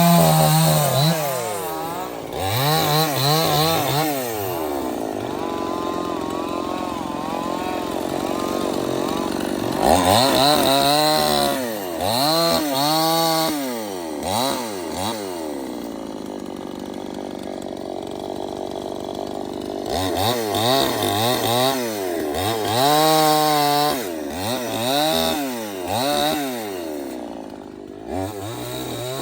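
Stihl 070 two-stroke chainsaw running, its engine revving up and falling back many times in quick swoops, with a couple of longer stretches of steadier running.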